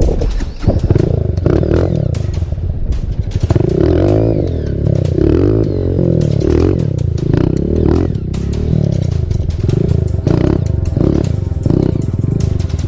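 Single-cylinder four-stroke dirt bike engine revving up and falling back again and again, about once a second, with clattering knocks throughout.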